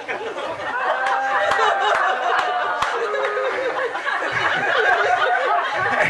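Audience laughing at a joke's punchline: many voices chuckling and laughing at once, swelling within the first second and carrying on steadily.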